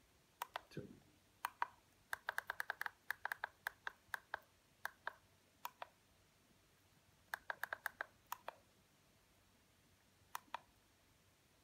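Push buttons on a SpirOx handheld spirometer clicking under a thumb as it pages through the menus: a few single presses, then quick runs of clicks about two to three seconds in and again near eight seconds.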